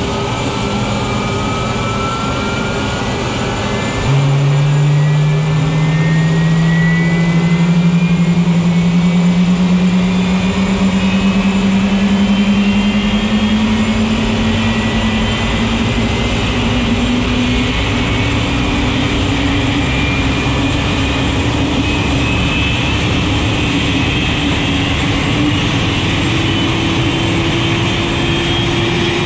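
Boeing 747-400 jet engine spooling up during start on pushback: a whine that starts suddenly about four seconds in and rises slowly in pitch, over the steady running noise of the pushback tug.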